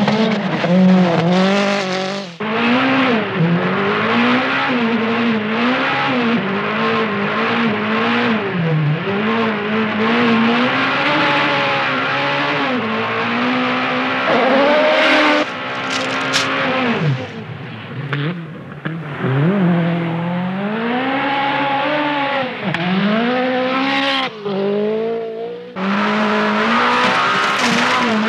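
Peugeot 405 T16 Grand Raid rally car's turbocharged four-cylinder engine at full race effort, its pitch climbing and dropping over and over through gear changes and corners, with brief lifts off the throttle about two seconds in, around the middle and near the end.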